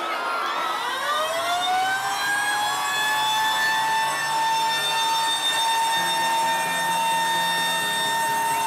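Siren wail in an electronic dance music soundtrack: a single tone glides up over the first few seconds, then holds steady. A low drone comes in about six seconds in.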